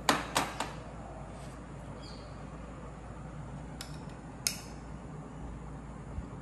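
Light clinks of a metal serving spoon against ceramic bowls and a plate as curry is served: three quick ones at the start and two more about four seconds in, over a steady faint hiss.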